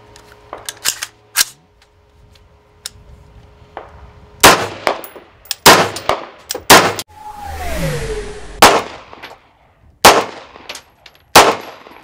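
AR-15-style rifle firing a string of about eight loud shots, roughly a second apart, starting about four seconds in. Fainter shots crack in the first two seconds, and a short falling whine follows one of the middle shots.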